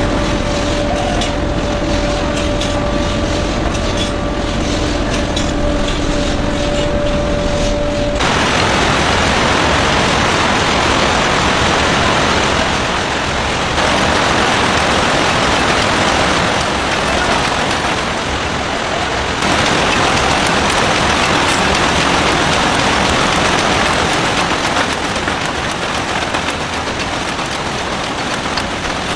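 Match factory machinery running. A steady hum with a clear tone stops suddenly about eight seconds in. Loud continuous machine noise follows, and it changes a few times.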